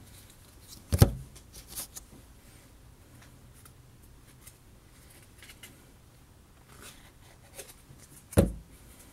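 Trading cards being handled: light rustling and a few small clicks, with two sudden thumps, one about a second in and one near the end.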